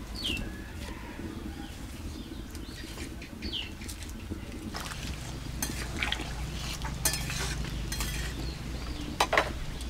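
Cut jackfruit pieces boiling in water in a steel karahi over a wood fire, with a low steady rumble and scattered clicks and crackles that are strongest just after nine seconds. Two short falling bird chirps, about half a second and three and a half seconds in.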